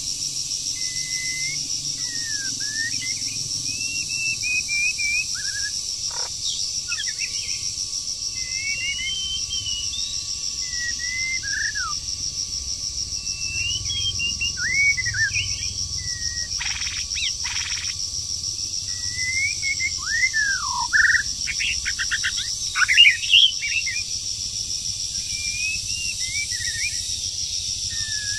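A songbird singing a string of short, varied whistled phrases and calls, loudest in a quick run near the end, over a steady high pulsing trill of insects. A few sharp rattling strokes come in between the phrases.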